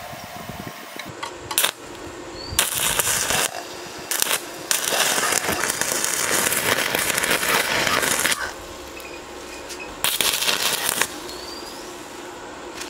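Stick (arc) welding: the electrode arc crackling and spitting in several bursts as a nut is welded onto a steel pipe. There are short strikes early on, then the longest run of about four seconds in the middle and one more burst of about a second near the end, with quieter gaps between.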